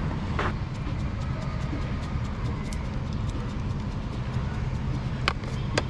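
Steady low rumble of street traffic, with a few sharp clicks: one about half a second in and two close together near the end, as scissors snip green chilli into a bowl of chopped cabbage and onion.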